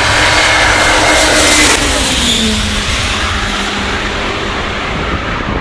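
Antonov An-124 Ruslan's four turbofan engines at takeoff thrust as it lifts off and passes, a loud steady jet noise. Its tones drop in pitch about two seconds in, and it turns duller as the aircraft climbs away.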